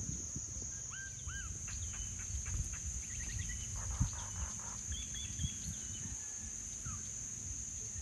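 Insects shrilling in one steady high-pitched drone, with short bird chirps now and then and a low rumble underneath.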